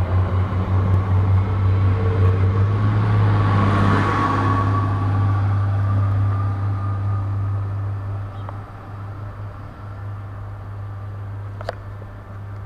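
Diesel-electric multiple unit train running, its engine giving a steady low hum under rolling noise. The noise swells about four seconds in and then dies down from about eight seconds.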